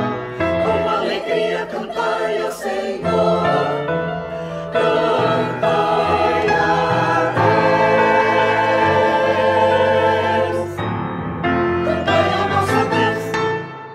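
Choir singing a hymn, with phrases breaking and resuming; the final phrase ends shortly before the close.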